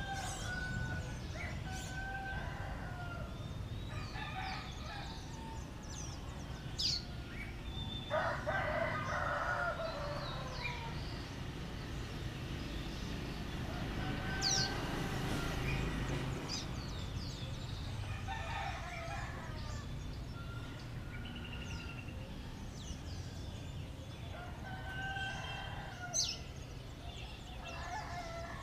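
Roosters crowing, a crow every few seconds, the loudest about eight seconds in. Short high bird chirps sound in between, over a steady low background rumble.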